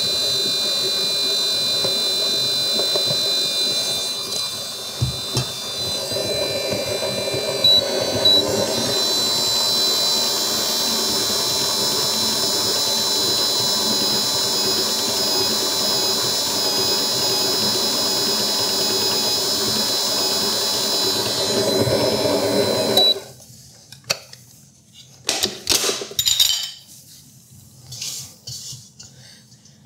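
Vevor 7.4-quart stand mixer's motor running on low speed as its paddle mixes dry ingredients into cookie dough, steady with a high whine, then switching off suddenly about three-quarters of the way through. A few clicks and knocks follow.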